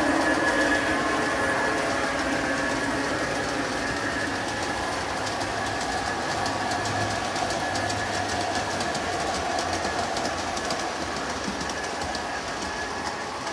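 G-scale model freight train rolling past on its track: a steady whine from the locomotives with a run of light clicks from the wheels on the rails, slowly fading as the train moves on.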